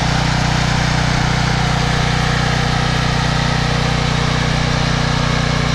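Troy-Bilt 8000-watt generator's 15 HP Briggs & Stratton OHV engine running steadily at an even speed, its clogged carburetor freshly cleaned.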